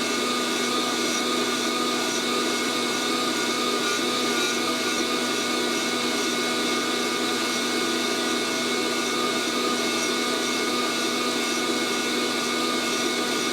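Fresh Roast SR 800 hot-air coffee roaster running steadily, its fan blowing heated air through the roasting chamber with a constant whoosh and motor hum. The beans are still short of first crack, so no cracking is heard.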